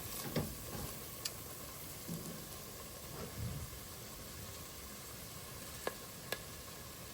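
Roux of butter, flour and onions sizzling steadily in a pan while it is stirred, with a few sharp clicks along the way.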